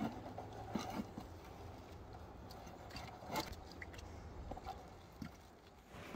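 Knives and kitchen shears cutting salmon on wooden cutting boards: a few scattered soft knocks and clicks.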